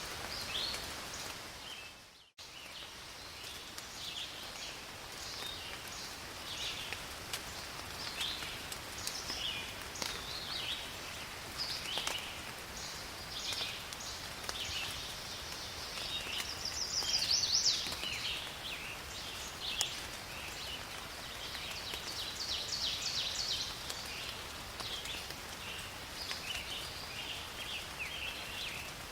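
Steady rain falling in a forest, with frequent short, high-pitched chirping calls all through. The sound fades out to almost nothing about two seconds in, then cuts straight back in.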